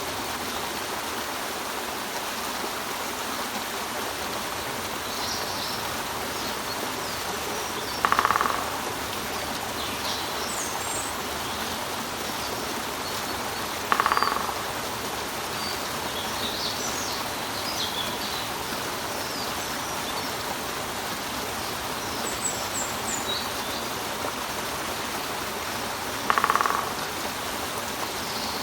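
Steady rush of water falling over a rock, with a woodpecker giving three short, loud, rapid rattles about 8, 14 and 26 seconds in. Small birds chirp faintly and high in the background.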